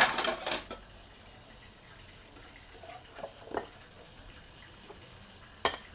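Kitchen utensils and dishes clattering in a quick flurry of knocks at the start, then a few light taps and one sharp knock near the end.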